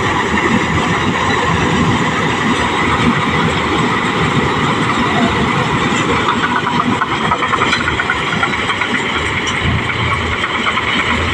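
Engine of a New Holland 8070 paddy machine running steadily and loudly, with a dense mechanical clatter over the engine.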